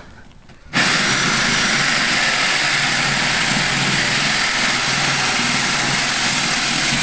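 Electric drill spinning a diamond core bit through a granite countertop, cutting wet, a steady grinding whine that starts suddenly under a second in. This is the last of the cut, just before the bit breaks through and frees the granite plug.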